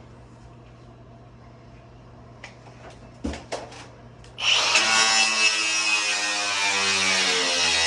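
A few handling knocks, then about four and a half seconds in a power tool starts and runs steadily, cutting into sheet-metal HVAC duct. Its motor pitch sags slightly under the load.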